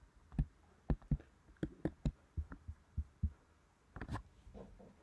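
About a dozen soft clicks and thumps at irregular spacing, from hands working a computer at a desk.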